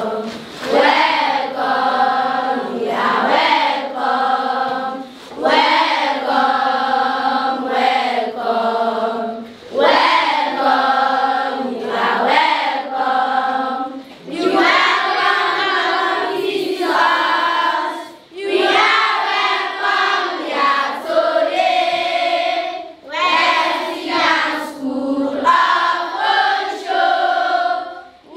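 A group of schoolchildren singing together in unison, in phrases a few seconds long with short breaks between them.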